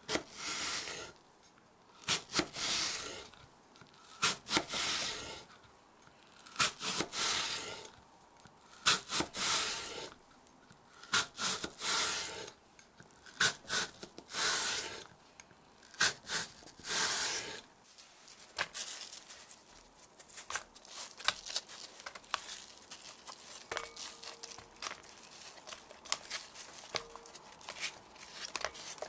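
A knife slicing through a crisp apple in about eight separate crunchy strokes, one every second and a half or so. From about two-thirds of the way in, this gives way to light scattered clicks and taps as the thin apple slices are laid into a glass bowl.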